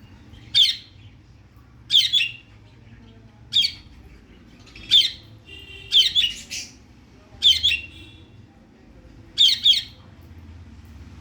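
Pet cockatiel giving short, loud calls, seven bouts about a second and a half apart, some of them doubled.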